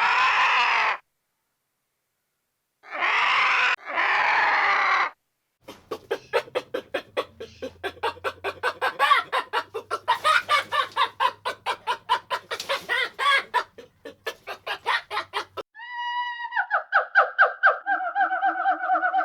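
A run of animal calls. Three harsh calls of about a second each come first. Then about ten seconds of chickens clucking rapidly, and near the end a high, pulsing call that steps down in pitch.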